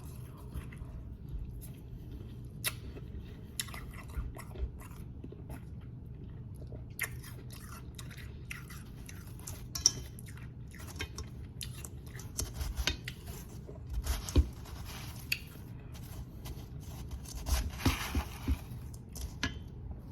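Close-up crunching and chewing of powdery snow ice: irregular crisp crackles and crunches as it is bitten and chewed, with denser bursts of crunching in several spells.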